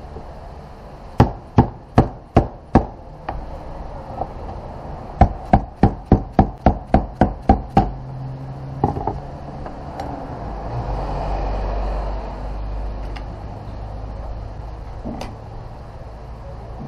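Hammer taps: five sharp strikes, then a quicker run of about ten, then a low rumble.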